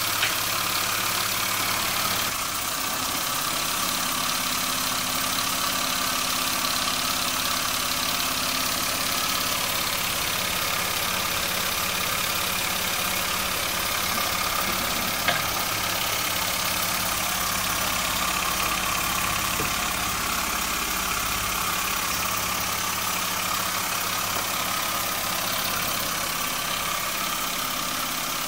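Jensen 20 model live steam engine running steadily, belt-driving a converted computer-fan generator, with a constant hiss over its mechanical running. A single sharp click sounds about halfway through.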